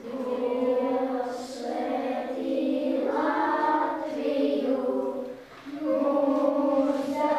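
A class of children singing together in unison, holding slow, long notes, with a brief break about five and a half seconds in.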